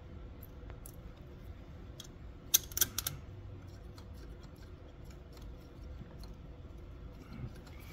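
Sharp clicks and taps of small hard parts being handled under the hood, the loudest a cluster of three about two and a half to three seconds in, with a few faint ticks elsewhere, over a low steady hum.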